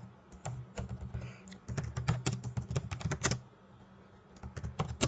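Typing on a computer keyboard: scattered keystrokes at first, a quick run of keys in the middle, a short pause, then more keystrokes near the end.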